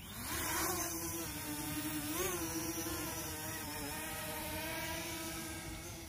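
Parrot Anafi quadcopter's motors and propellers buzzing steadily, getting louder in the first half second, with a brief rise in pitch about two seconds in.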